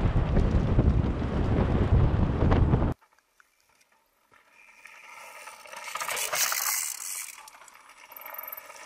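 Wind buffeting the microphone as a low rumble that cuts off abruptly about three seconds in. Then mountain bikes roll past on a loose rocky gravel trail, tyres crunching and scraping over stones with small clicks, swelling to a peak and fading.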